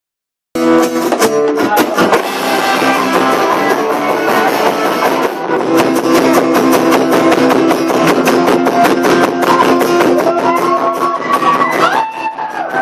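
Live rock band playing through a club PA, heard from the audience, with strummed guitar to the fore. The sound cuts in abruptly about half a second in, and dips briefly near the end.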